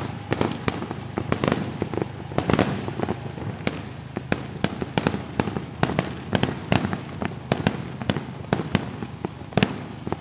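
Fireworks display: a rapid, irregular run of bangs and crackles, several a second.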